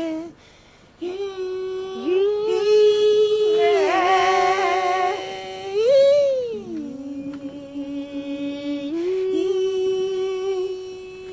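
A single high voice sings long held notes, sliding up and down between them, with some vibrato in the middle; it starts about a second in after a brief hush.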